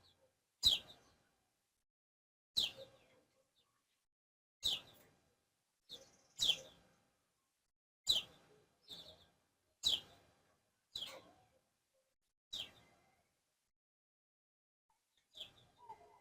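A small bird chirping: a string of single short, sharp chirps, each dropping quickly in pitch, repeated about every one and a half to two seconds.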